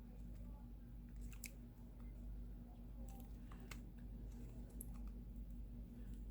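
Faint, scattered light clicks and taps of hands handling a phone and its glass back on a work surface, over a steady low hum.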